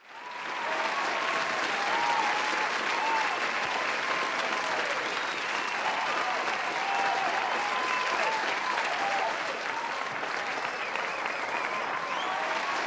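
Audience applauding, the clapping swelling up in the first second and then holding steady, with scattered voices cheering and calling out over it.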